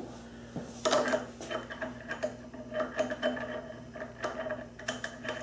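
Small steel parts clinking and tapping again and again, with a light metallic ring, as a washer and nut are fitted onto the top of a South Bend drill press's spindle pulley.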